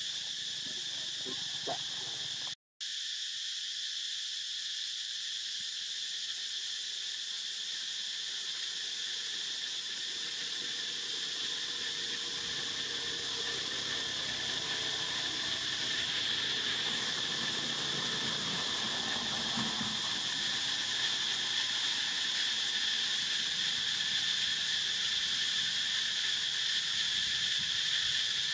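A steady chorus of insects, an unbroken high-pitched buzzing drone. The sound cuts out completely for a split second about three seconds in.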